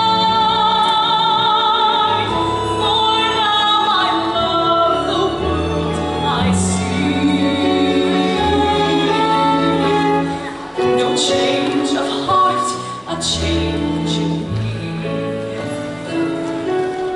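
Woman singing a musical-theatre ballad in a trained voice with strong vibrato, holding a long note at the start, over instrumental accompaniment. The accompaniment's sustained notes carry on through the rest.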